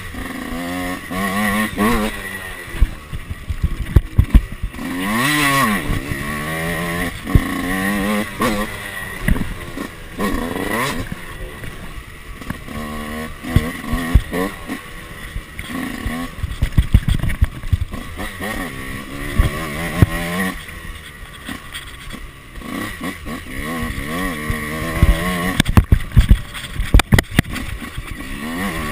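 Yamaha YZ two-stroke dirt bike engine revving up and down over and over as the throttle is opened and rolled off on a trail ride, with occasional sharp knocks.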